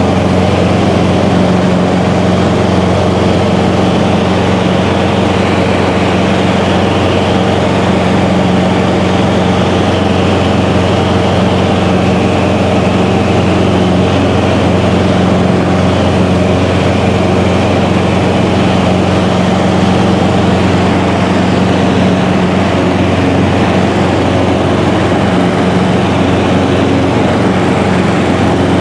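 Piston engine and propeller of a single-engine, high-wing light aircraft running steadily at cruise, heard from inside the cabin as a constant drone.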